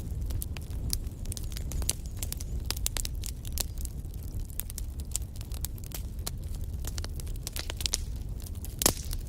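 Fireplace fire crackling, with many small pops over a low steady rumble of flames, and one louder pop near the end.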